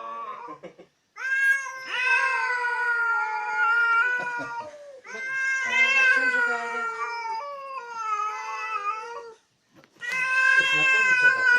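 Domestic cat yowling in long, wavering, drawn-out howls: territorial caterwauling at a strange cat. One call ends about a second in, and three more long yowls of several seconds each follow, with a short break near the end.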